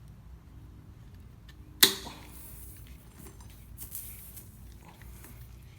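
A single sharp metallic snap about two seconds in, by far the loudest sound, as wire cutters bite and work at a screw lodged in a car tyre's tread. Faint handling clicks and rustles come before and after it.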